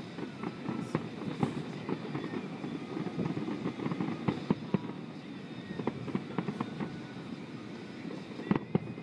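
Fireworks going off: a steady crackle of many small pops, with louder sharp bangs twice about four seconds in and twice again near the end.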